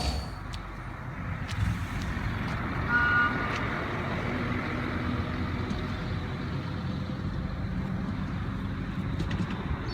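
Low, steady vehicle rumble, with one short electronic beep about three seconds in.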